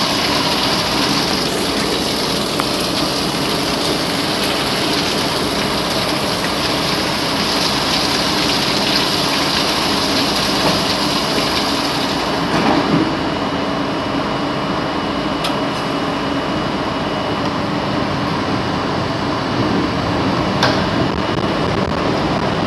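Steady noise of an R32 subway car standing at an elevated station in a downpour, with rain and the car's running equipment heard through the front window. A high hiss stops suddenly about halfway through, with a short knock just after it and a few light clicks later.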